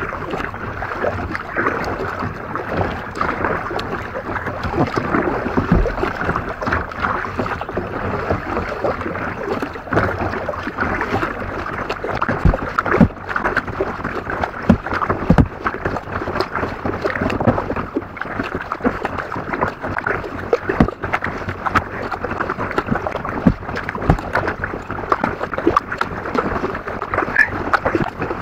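Kayak being paddled: paddle blades dipping and water splashing and lapping at the hull, with a constant rush of wind on the microphone and frequent small irregular knocks.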